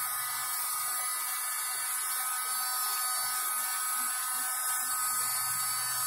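USB-powered mini vacuum cleaner's small motor running with a steady high whine and rush of air as its brush nozzle sucks up scattered mustard seeds.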